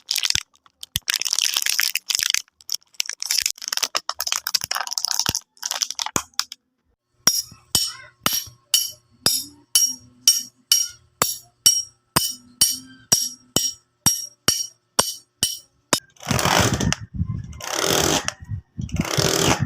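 Hand-made foley sound effects in three parts: a few seconds of bursts of rustling noise, then a steady run of sharp clicks about two a second, then long noisy bursts near the end.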